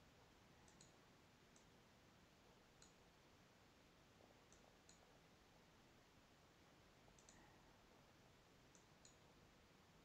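Faint computer mouse clicks in near silence: about ten short clicks scattered through, several in close pairs, as chess pieces are picked up and dropped on screen.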